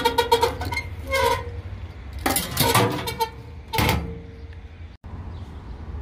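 Steel key drop box's hinged slot being worked, with several sharp metal clanks and a ringing metallic tone. After that comes a steady low outdoor rumble.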